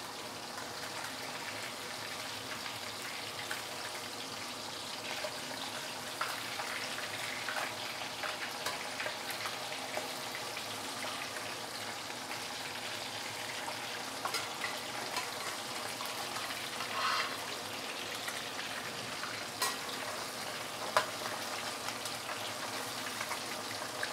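Small silago whiting deep-frying in hot palm oil in a wok: a steady crackling sizzle, with sharper pops scattered through, a few of them stronger in the second half.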